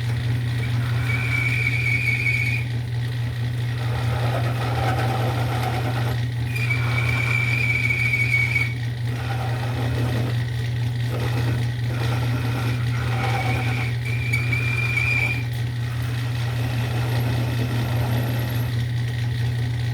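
Small lathe running with a steady low hum while a cutting tool shapes a chromatic harmonica slide button. A high-pitched whine of the tool cutting comes and goes three times: about a second in, from about six to nine seconds, and around fourteen to fifteen seconds.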